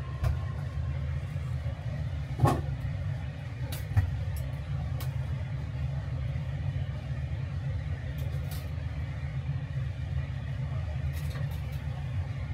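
Steady low hum of kitchen machinery, with a few light knocks as a ceramic bowl is handled on a steel counter, the loudest about two and a half and four seconds in.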